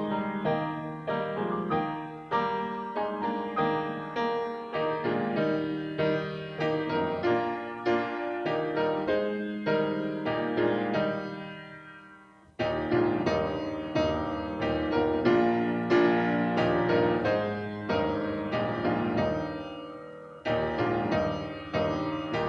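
Piano playing slow music, notes struck and left to ring. It fades almost away about twelve seconds in, then starts again suddenly.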